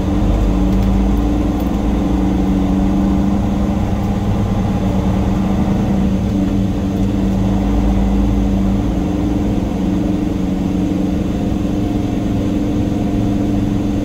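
Semi truck's diesel engine running at low revs while the truck moves slowly, a steady drone.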